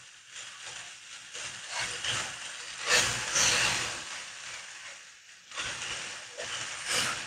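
Minced chicken and onions sizzling in a nonstick frying pan while a wooden spatula stirs and scrapes them, in irregular strokes that swell louder about three seconds in and again near the end.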